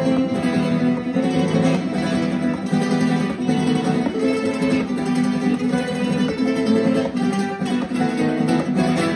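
Several classical guitars playing a piece together, with plucked and strummed notes layered without a break.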